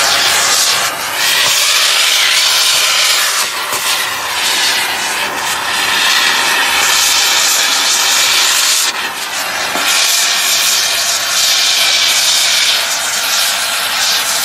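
Hand-held gas torch burning with a loud, steady hiss as its flame is played across a wooden door to char it, the level dipping briefly a couple of times as the torch moves.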